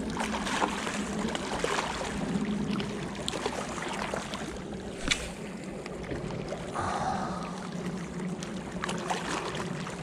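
Small waves lapping and splashing against a rocky lake shore, with wind rumbling on the microphone; a sharp click stands out about five seconds in.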